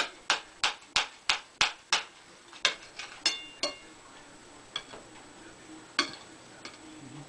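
Kitchen knife striking a ceramic plate as a baked potato is cut: a run of sharp, evenly spaced clicks about three a second for the first two seconds, then a few ringing clinks, then occasional single taps.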